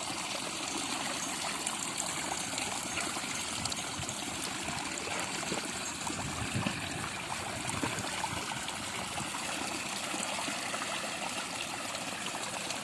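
Shallow water running steadily in a stream-like trickle, with a few faint knocks or splashes around the middle.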